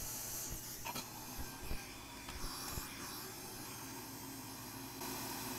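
Hot-air rework station blowing with a faint steady hiss that stops about half a second in. A few faint ticks follow as metal tweezers touch the circuit board, lifting the desoldered chip off its pads.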